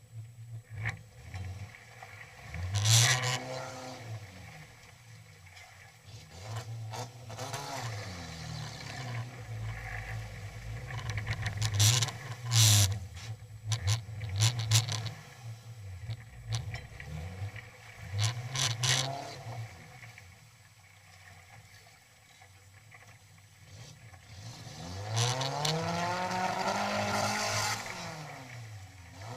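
Engine of a modified off-road 4x4 revving up and dropping back in repeated bursts, with a longer, higher rev near the end. A few sharp knocks come about halfway through.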